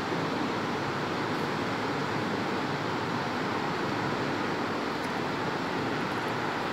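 Steady, even rushing background noise with no distinct events and no speech.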